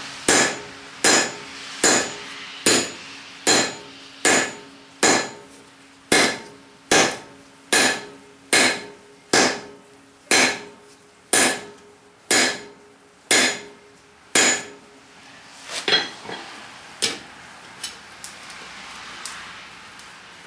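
Hand hammer striking a hot steel hammer head on an anvil, about seventeen steady blows a little under a second apart, each followed by the anvil ringing, as the head is forged flat. About 15 seconds in the steady blows stop and a few lighter, irregular taps follow.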